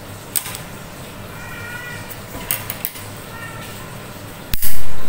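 Small scissors snipping at the plastic cord of a clothing tag, a few sharp clicks. Near the end there is a very loud sudden thump.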